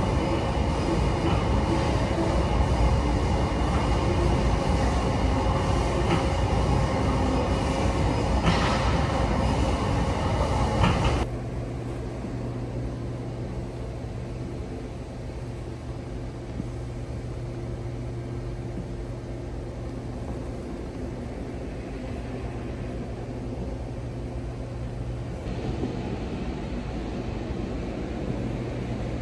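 Loud, steady gym noise while a seated weight machine is in use, with a single knock about eight seconds in. Just after eleven seconds it drops to the quieter, steady hum of a massage chair's motors.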